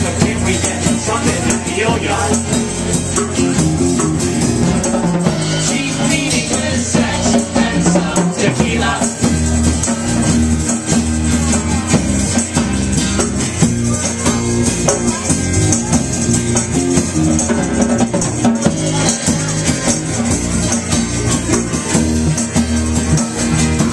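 Live band playing a song: electric bass, acoustic guitar and drums with rattling hand percussion, and voices singing into microphones.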